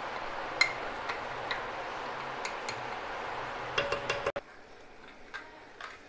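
Wooden spatula tapping and scraping against a glass bowl as ghee is scraped out into a clay pot: a series of light, sharp clicks, the sharpest about half a second in and a quick cluster near four seconds, then a few fainter ones.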